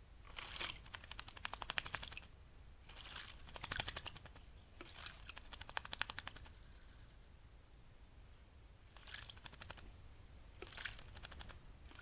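American robin bathing in a shallow bird bath, splashing the water with rapid wing-flutters in about five short bouts of a second or two each, with a longer pause in the middle.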